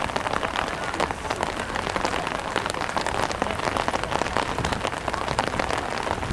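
Steady rain: a dense, even run of small drop hits over a continuous hiss.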